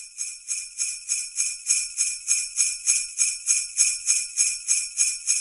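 Sleigh bells shaken in a steady rhythm, about four shakes a second.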